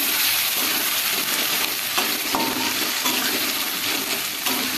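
Onion, ginger, garlic and chilli pastes sizzling steadily in hot oil as they are stirred, with a few clicks of the spatula against the pan about two and three seconds in.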